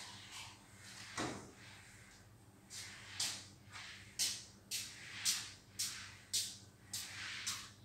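Broom bristles swept across a hard floor in short, regular strokes, about two a second, with a pause of a second or so after a dull scrape about a second in.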